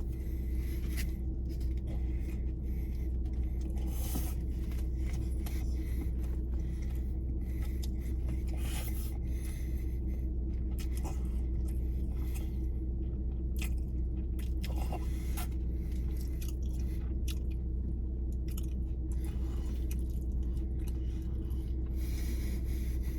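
Close-up chewing and biting of fast food, a Big Mac and chicken nuggets, with scattered short crunches over a steady low hum.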